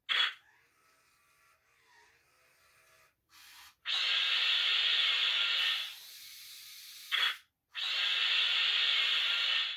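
Bandai RC Mechagodzilla toy playing its sound effects through its small built-in speaker: a few short hissing bursts, then two long hissing blasts of about two seconds each, about 4 s and 8 s in.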